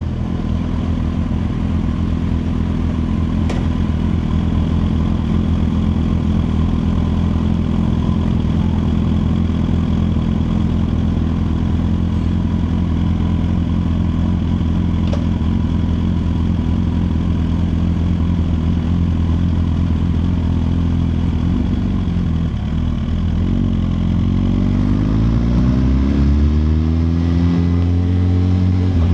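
2021 Suzuki GSX-R1000R's inline-four engine idling steadily, with two short clicks along the way. Near the end the revs rise smoothly.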